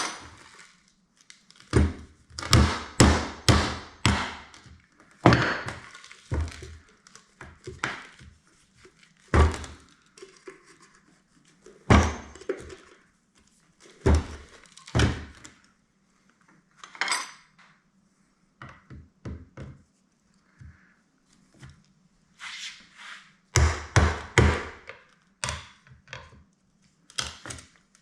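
Repeated hard knocks and thunks on a corroded garbage disposal unit being taken apart, some coming in quick runs of four or five strikes, others single, with short pauses between.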